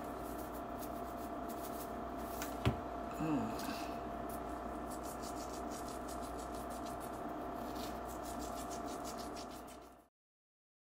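Hand-twisted salt grinder grinding salt over halved acorn squash, a fine rapid rasping, over a steady electrical hum. One knock about two and a half seconds in, and the sound cuts off abruptly near the end.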